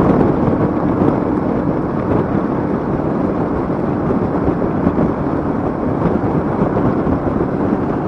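Royal Enfield Meteor 350's single-cylinder engine running steadily at cruising speed, mixed with wind rushing over the microphone.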